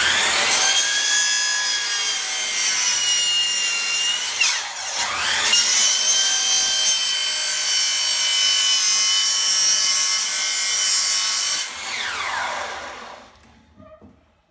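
Hercules 12-inch sliding compound miter saw spinning up and cutting through a hard wooden board, a steady high motor whine over the cutting noise. About four and a half seconds in, the motor slows sharply and winds back up. Near the end it is switched off and whines down to a stop.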